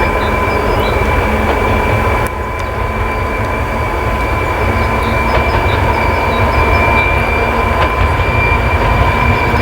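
2TE116 diesel locomotive's 5D49 engines running under load with the turbochargers' high, steady whistle (the 'Boeing' whistle this class is known for) over a dense engine rumble. The sound dips briefly about two seconds in, then slowly grows louder.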